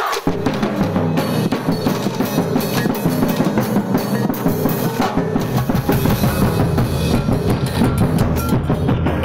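Festival percussion ensemble playing: wooden-bar xylophones and drums keep up a dense, steady rhythm. The music starts abruptly right at the start, and a deeper bass drum joins about five seconds in.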